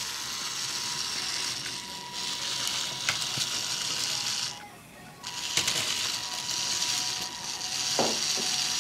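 Lego train motor driving an exposed plastic gear train, a steady whirring buzz. It stops for about half a second halfway through, then starts again, with a short falling whine near the end.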